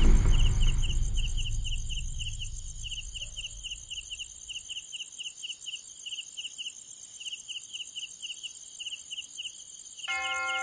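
Crickets chirping in a regular pulsing rhythm, about three chirps a second, while a deep rumble from a loud hit fades out over the first few seconds. Near the end a held chord of pure electronic tones comes in.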